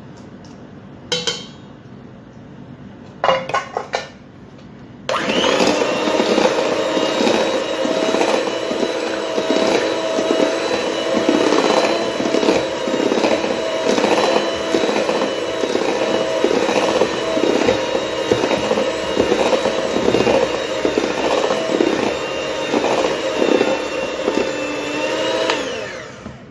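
Electric hand mixer switched on about five seconds in, its motor running at a steady whine while the beaters churn cake batter in a stainless steel bowl with a fast rattle; it winds down and stops just before the end. A few short knocks come before it starts.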